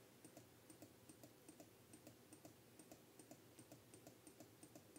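Faint, evenly spaced computer clicks, about three a second, from a control pressed over and over to step through an embroidery design stitch by stitch.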